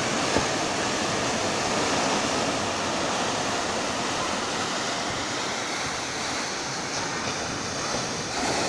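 Sea surf breaking and washing over the boulders of a rocky seawall: a steady, continuous rush of waves.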